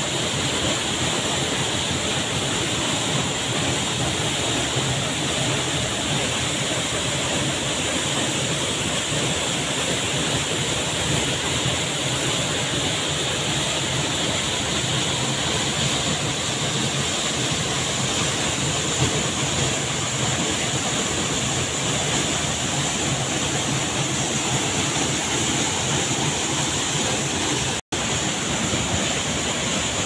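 Waterfall pouring into a rocky pool: a steady, even rush of falling and churning water, cutting out for an instant near the end.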